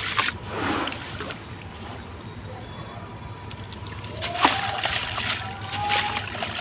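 Crumbly sand-cement blocks breaking apart in water, splashing and sloshing: a splashy crumble just after the start and a sharp knock about four and a half seconds in.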